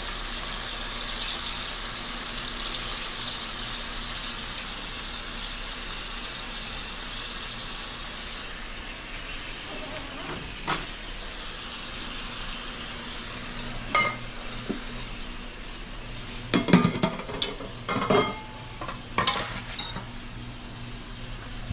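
Jumbo shrimp simmering in garlic butter, oil and white wine in a pan, a steady sizzle. In the second half, a few sharp clinks and knocks of kitchen utensils and cookware, in a quick cluster near the end.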